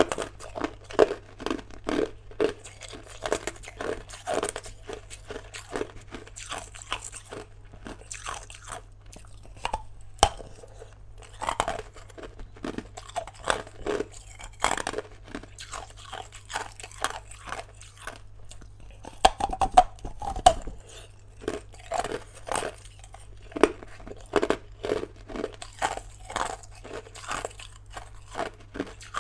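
A person biting and chewing hard, clear block ice: a steady run of sharp, crisp crunches, about two a second, with a louder burst of cracking about two-thirds of the way through.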